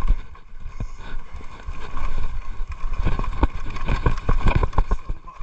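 Full-suspension mountain bike clattering and knocking over roots and rough dirt on a fast descent, with a steady low rumble of tyre noise and wind.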